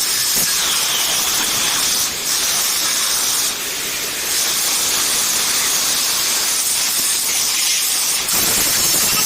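Angle grinder grinding a welded metal gate: a steady, harsh, high hiss of disc on metal, easing off briefly about two, three and a half and eight seconds in.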